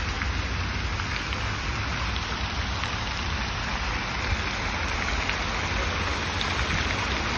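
Fountain jets splashing down into a large stone basin, a steady rain-like hiss of falling water, with a steady low rumble underneath.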